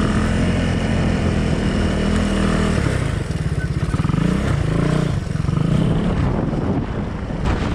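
Honda XR200 dirt bike's single-cylinder four-stroke engine running while being ridden, its note falling and rising with the throttle a few times midway.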